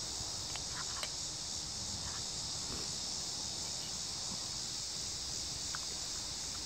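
Steady high-pitched chorus of insects, with a few faint light clicks.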